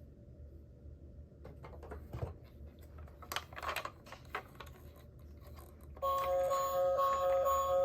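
Faint plastic clicks and rattles of a toy minicar being handled. About six seconds in, a toy car's electronic siren starts, a loud two-tone hi-lo pattern repeating about twice a second.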